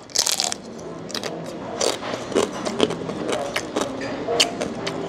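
Crisp crunch of a bite into crackling lechon (roast pig) skin, then repeated sharp crackles as it is chewed, close to the microphone.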